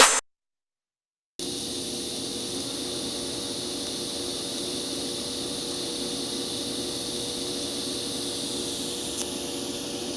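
Steady machine noise: a low hum with a high hiss, even and unchanging, starting about a second in after a brief silence.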